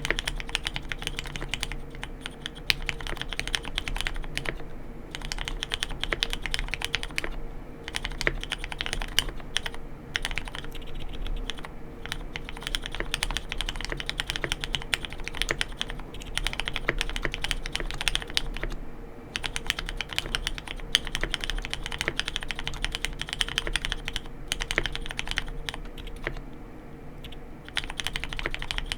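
Typing sentences on a Mode Sonnet custom mechanical keyboard with lubed, filmed Hyperglide Black linear switches and KBDfans Clear Aurora keycaps: a dense, steady run of keystrokes broken by a few brief pauses.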